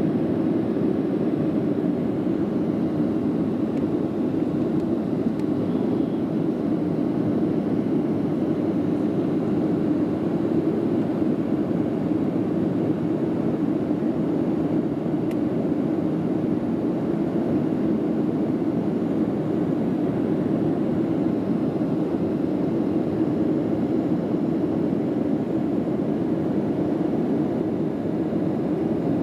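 Cabin noise of a Boeing 737-700 in its climb, heard from a window seat: a steady low rush of engine and airflow noise from its CFM56-7B turbofans and the air over the fuselage, even and unbroken throughout.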